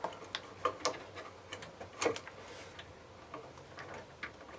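Irregular light clicks and taps from hand work on the water heater's wiring: tools and wire terminals being handled. The sharpest click comes about two seconds in.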